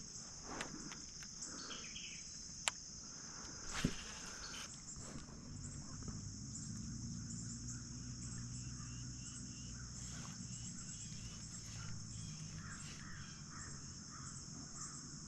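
Steady chorus of crickets and other insects, a continuous high trill, faint under the open air. Two light clicks come a few seconds in, and a faint low drone runs through the middle.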